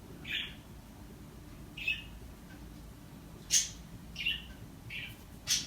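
A small bird chirping in about six short, high calls spread over a few seconds, two of them sharper than the rest.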